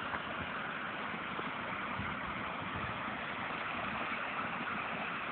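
Water pouring down a concrete dam spillway and crashing into the river below: a steady rushing noise with a low rumble.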